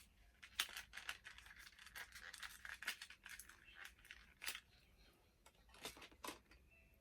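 Packaging being handled and pulled open, making irregular crinkling and crackling that stops near the end.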